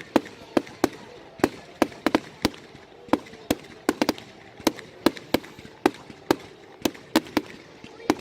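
Fireworks display going off in a rapid, irregular series of sharp bangs, about two or three a second.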